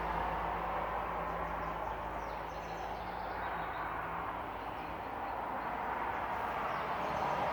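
Passing road traffic: a steady rushing that eases off mid-way and swells again near the end. A few faint bird chirps come through in the middle.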